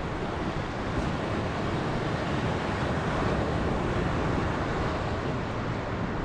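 Steady wash of ocean waves with wind buffeting the microphone.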